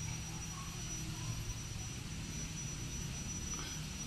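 An insect's steady, high-pitched whistle-like whine, holding one pitch, over a low background rumble.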